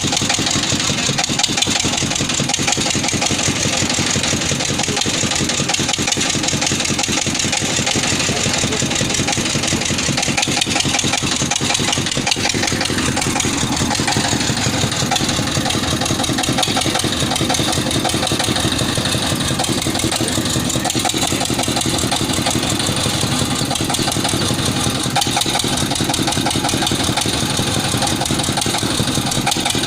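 Engine of a water-well boring rig running steadily, a loud, even, fast-beating mechanical noise.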